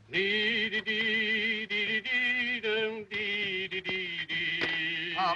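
Men's voices humming a tune without words, in long, wavering held notes that change pitch every second or so. A few light clicks sound through it.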